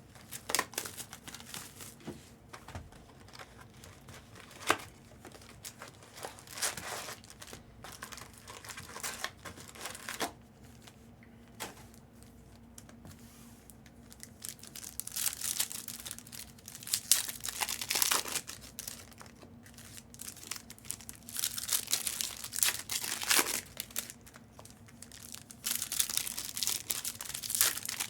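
Plastic packaging handled in irregular bursts of crinkling and tearing, busier in the second half, with a single sharp click about five seconds in; a faint steady hum sits underneath.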